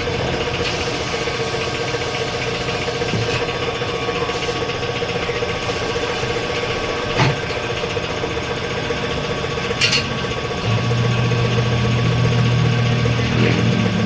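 An engine running steadily, with two sharp knocks about seven and ten seconds in and a deeper steady hum joining about ten and a half seconds in.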